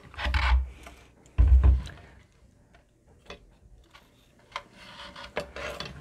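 A hand and arm working inside an open bookshelf speaker cabinet, pulling on the internal wiring: two dull thumps against the cabinet in the first two seconds, then scattered light clicks and rubbing.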